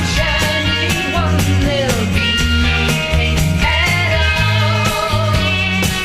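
Recorded psychedelic rock music: drums, bass and guitar at a steady beat, with a lead line bending in pitch.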